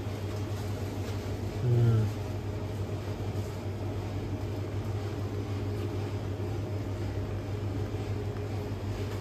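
Steady low electrical hum of supermarket chest freezers running, with a brief louder low-pitched sound about two seconds in.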